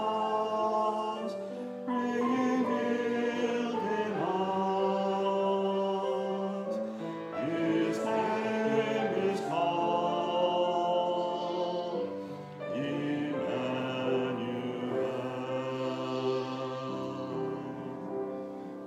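Voices singing a hymn together over sustained instrumental chords, the music dying away near the end.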